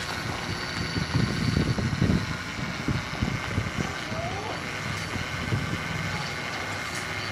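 RC hydraulic excavator running with its pump at a steady hum and whine while its metal bucket drags and scrapes through soil, with irregular crackling from about one to four seconds in, then the arm lifts the bucket clear.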